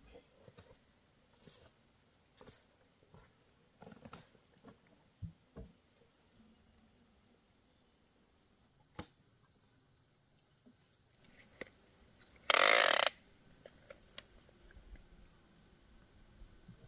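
Insects trilling in one steady high-pitched tone, with a few faint clicks and one short, louder burst of noise about twelve seconds in.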